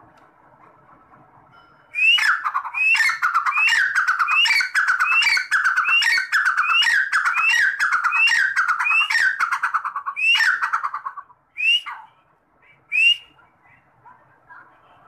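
Partridge (teetar) calling: a loud run of about sixteen harsh notes, roughly two a second, each starting high and sliding down, beginning about two seconds in. After a short break it gives two more single notes.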